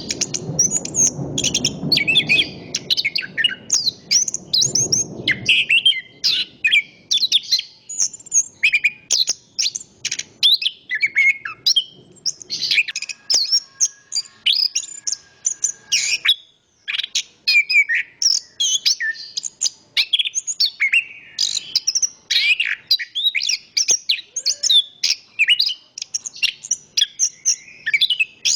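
Chestnut-capped thrush (anis kembang) singing a long, unbroken run of rapid, varied high phrases. For the first five seconds or so, a low rush of wind runs under the song.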